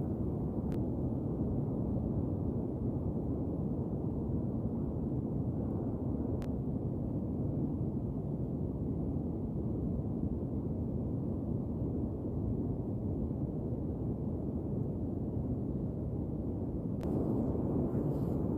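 Wind buffeting the microphone: a steady low rumble that thickens slightly near the end.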